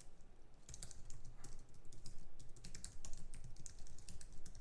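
Typing on a computer keyboard: a run of quick, irregular key clicks.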